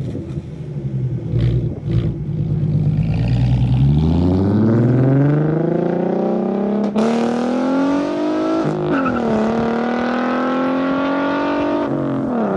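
V6 Mustang's 3.7-litre V6 through shorty headers, an X-pipe and a muffler delete, pulling hard. The engine pitch rises for about five seconds, drops sharply at a gear change, then holds and climbs slowly before easing off near the end.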